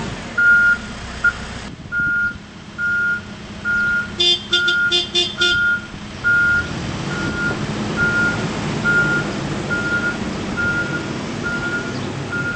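Backup alarm on a Case 580N backhoe loader beeping steadily, about three beeps every two seconds, while the machine reverses with its diesel engine running. The engine grows louder about halfway through. A quick burst of short chirping tones comes around a third of the way in.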